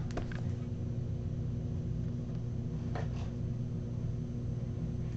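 Steady low electrical hum of room tone, with a few faint, brief rustles of foil card packs being handled, the clearest about three seconds in.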